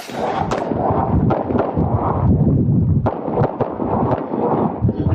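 Handgun shots fired in quick strings as a competitor shoots an IPSC stage, starting right after the shot timer's start signal.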